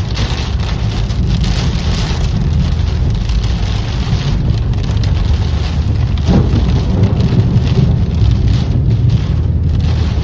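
Heavy rain pouring in a thunderstorm, a dense steady hiss over a deep low rumble that swells a little after the middle.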